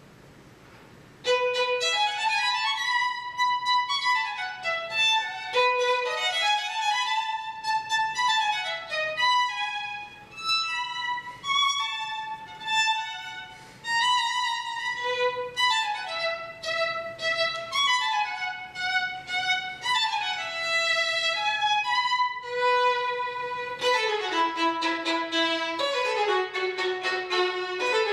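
Solo violin, bowed, starting about a second in after a short pause, in fast runs of notes that sweep up and down. Near the end it plays chords of two or more notes at once.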